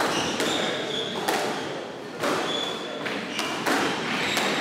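Squash rally: the ball being struck by rackets and hitting the court walls, a sharp knock about once a second, with short high squeaks of shoes on the wooden court floor.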